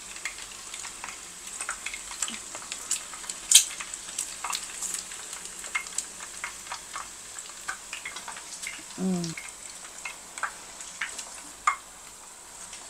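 Peeled hard-boiled eggs deep-frying in hot oil: a steady sizzle full of crackles and spattering pops, with one loud pop about three and a half seconds in.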